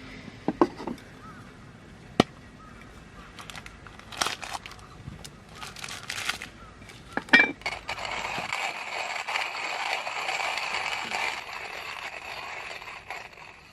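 Camp gear being handled: scattered sharp clicks and knocks, then a steady rushing hiss from about eight seconds in that fades near the end.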